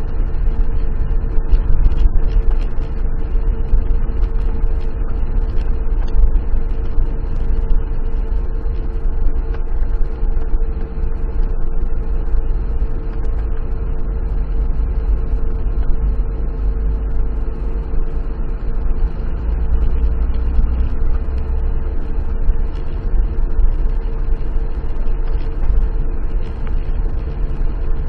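Car engine and tyres on a wet road, heard from inside the cabin through the dashcam: a steady low rumble with a steady hum over it.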